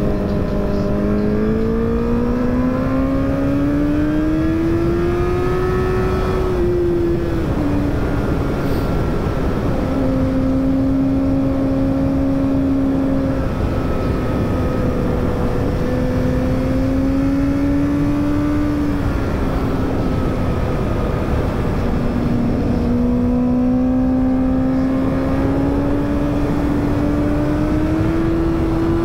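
Honda CBR1000RR Fireblade's inline-four engine under way at speed, its note climbing during acceleration, dropping about seven seconds in and then holding, easing and rising again. Heavy wind rush runs under it.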